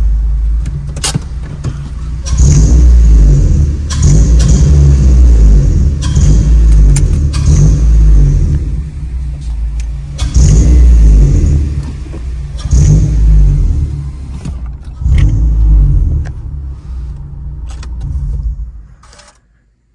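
A 9th-generation Honda Civic Si's 2.4-litre K24 four-cylinder, fitted with a full 3-inch downpipe and exhaust, is revved about six times from idle, heard from inside the cabin. The engine is switched off near the end.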